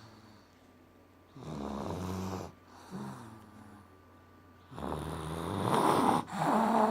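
Snoring from someone asleep: a snore about one and a half seconds in, a short one near three seconds, then a longer, louder snore from about five seconds in and another at the end.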